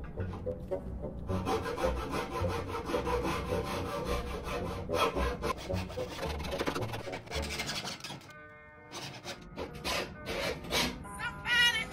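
Small hacksaw cutting through a wooden baseboard moulding with steady back-and-forth strokes, a dry rasping through the wood. The sawing stops about eight seconds in.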